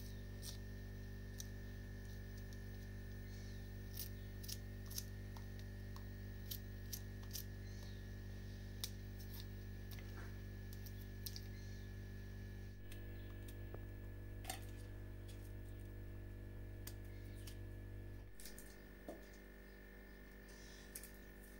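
Garlic cloves being peeled by hand and with a small knife: scattered light clicks and crackles of the papery skins. Under them runs a steady low hum that drops off about eighteen seconds in.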